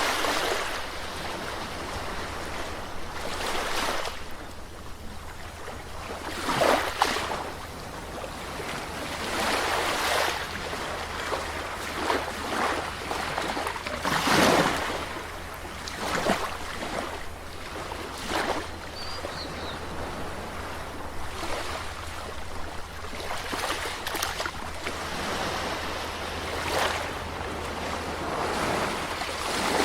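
Sea waves breaking and washing on a shore, with a steady wash of surf and swells every few seconds as each wave comes in.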